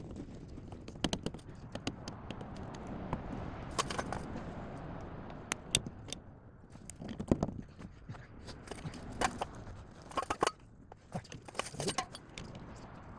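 Irregular metallic clinks, clicks and scrapes of hand tools being handled and worked against steel parts, over a steady low background rumble.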